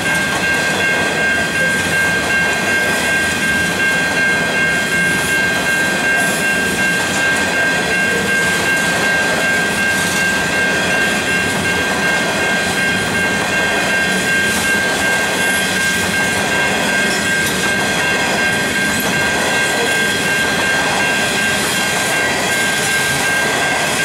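Coal hopper wagons of a freight train rolling past at a level crossing, their steel wheels running on the rails in a steady noise that does not let up. A steady high-pitched tone sounds over it the whole time.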